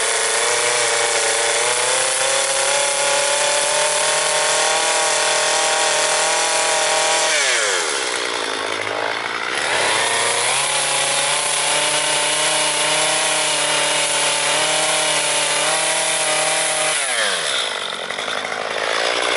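Chainsaw running at full throttle, cutting into a wooden log. The throttle is let off twice, about seven seconds in and again near the end, and the engine note falls, then revs back up.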